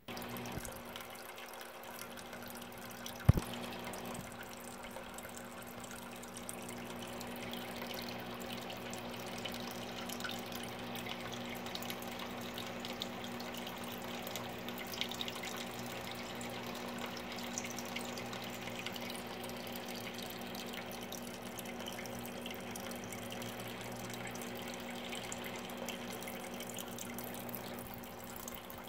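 Water trickling and dripping steadily in an aquarium, over a low steady hum. One sharp knock about three seconds in.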